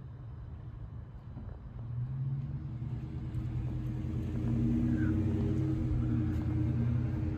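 A low, steady engine rumble that grows louder from about two seconds in.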